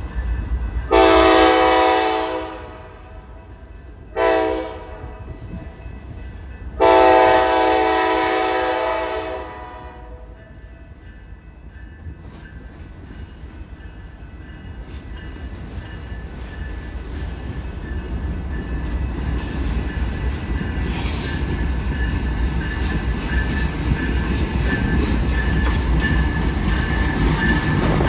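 Diesel locomotive air horn sounding a long blast, a short one and another long one. The train's rumble then grows steadily louder as it approaches.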